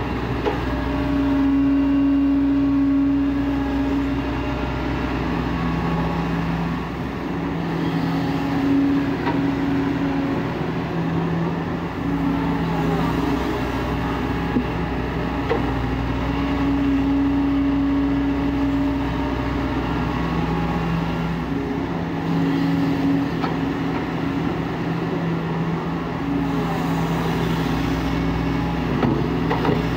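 Diesel engine and hydraulics of a Kobelco SK140 excavator running steadily while it works. Its note shifts back and forth between a higher and a lower tone every few seconds as the load changes.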